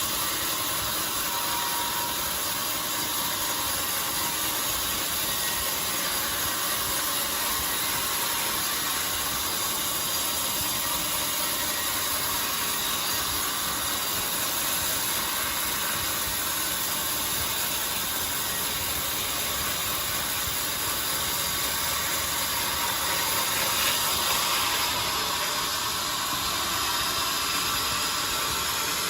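Band sawmill running steadily through a jackfruit log, a continuous even noise with no pauses.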